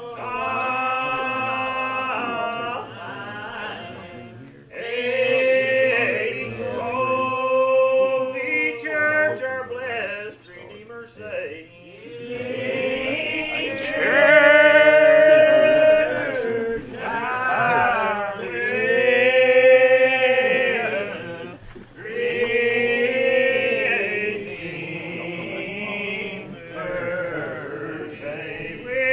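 Unaccompanied hymn singing in the Old Regular Baptist lined-out style: slow, long drawn-out notes that slide between pitches, sung in phrases of several seconds with short breaks between them.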